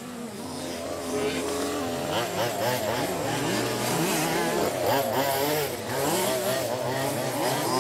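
Several fifth-scale off-road RC cars' small two-stroke petrol engines running at racing speed, their pitches rising and falling and overlapping as the cars rev and lift around the track.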